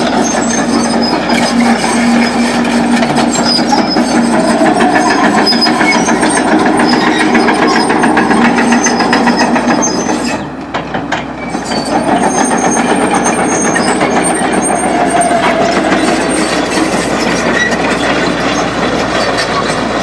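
Caterpillar 312B hydraulic excavator running, with a steady diesel engine note under continuous metallic rattling and clanking. The level drops briefly about halfway through, then picks up again.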